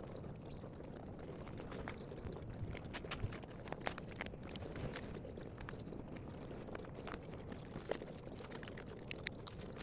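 Scattered light clicks and taps of screws and metal desk-frame parts being handled during standing desk assembly, over a steady background hiss.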